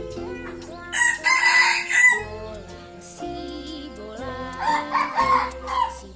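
A cock crows loudly about a second into the clip, the crow lasting about a second. A second crowing call comes around five seconds in. Background music with a steady beat plays under both.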